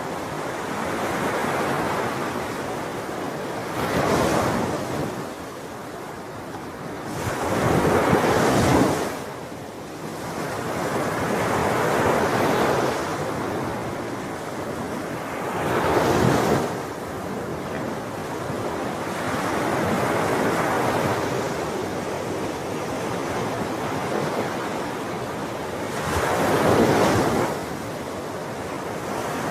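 Sea waves breaking and washing on the shore: a steady surf wash with four louder breakers that swell and fall away.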